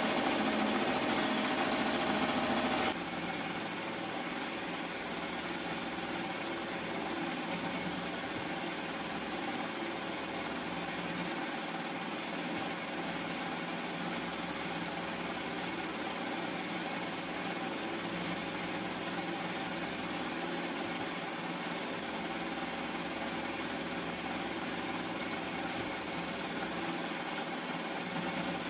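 Melco Bravo multi-needle embroidery machine stitching a design at speed, running steadily with a rapid mechanical needle rattle. It is louder for about the first three seconds, then settles to an even level.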